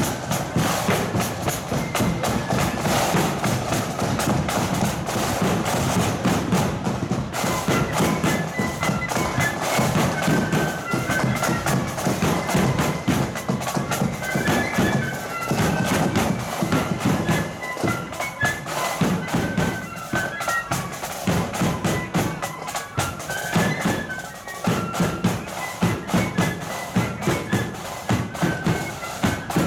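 Marching flute band playing: flutes carry a stepping melody over the steady beat of snare and bass drums.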